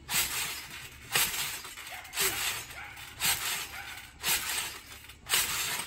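Trampoline bouncing: someone lands on the mat about once a second, six bounces in a steady rhythm, each a sudden crash of mat and springs that fades before the next.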